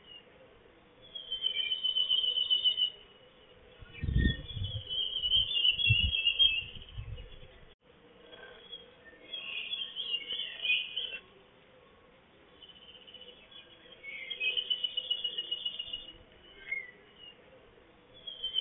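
A small songbird singing trilled phrases of a second or two, repeated every few seconds. A low rumbling comes in about four seconds in and stops about three seconds later.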